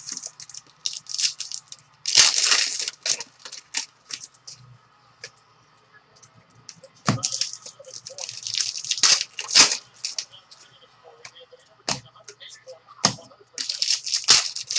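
Trading-card pack wrappers crinkling and tearing open in three loud bursts, the first about two seconds in being the loudest, with light clicks and rustles of cards being handled in between.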